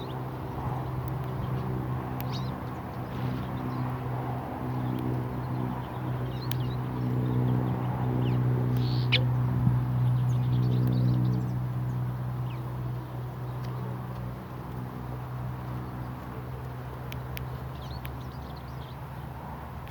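Scattered short bird chirps over a steady low mechanical hum, which grows louder through the middle and then fades.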